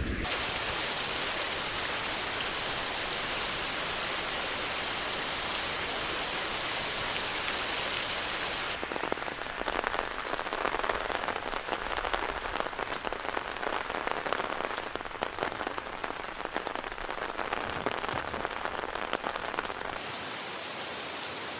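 Rain falling in a dense, steady hiss. About a third of the way in it cuts to closer, uneven pattering of individual drops, and near the end it cuts again to a softer, even hiss.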